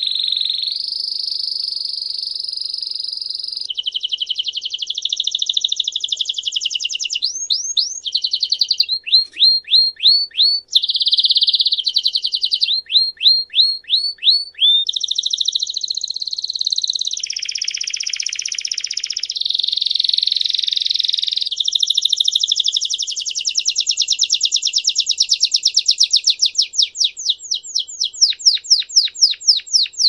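Belgian canary singing a continuous song: long, fast rolling trills alternate with runs of quick, sharply falling notes, such as the series about nine seconds in, around thirteen seconds and near the end.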